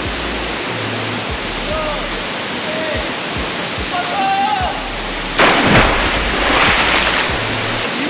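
Steady rushing of a large waterfall and its churning river. About five and a half seconds in there is a sudden loud splash-like surge lasting about two seconds, as a person jumping from a cliff hits the water.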